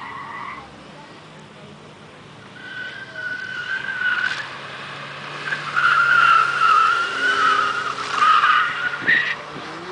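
A Toyota Celica's tyres squealing as it corners hard, with its engine running underneath. The wavering squeal builds from about three seconds in and is loudest over the last few seconds.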